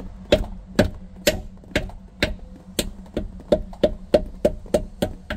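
A mallet knocking repeatedly on the piston crowns of a seized jet boat engine with its cylinder head off: about fifteen sharp knocks, two to three a second, each with a brief ring. The pistons are being hammered to try to drive them down in an engine that is locked up, which turns out to have a thrown connecting rod.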